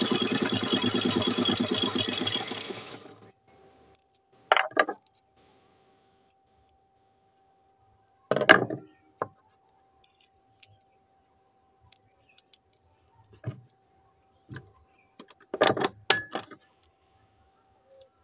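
Sewing machine running fast and evenly while winding red thread onto its bobbin, winding down and stopping about three seconds in. After that come a few short metallic clicks and rattles as the bobbin and thread are handled.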